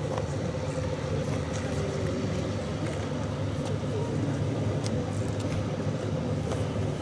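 SNCF X 2800 diesel railcar engine running steadily as the railcar creeps forward, a constant low hum.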